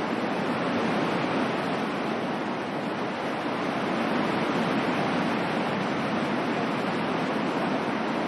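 Steady ocean surf used as a white-noise bed: a continuous wash of waves, swelling and easing gently in loudness.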